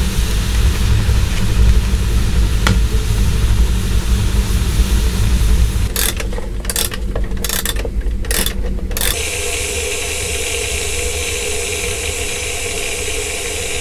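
Iron wood-burning stove running with a low rumble and a steady hiss from its fire, then a steel kettle on the stove hissing with a faint hum as its water heats. The sound cuts in and out several times about halfway through.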